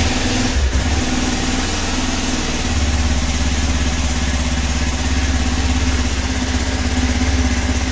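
Hero XPulse 200 4V's single-cylinder engine idling just after a cold start, warming up after standing unused for a month. The note runs steadily and deepens a little about three seconds in.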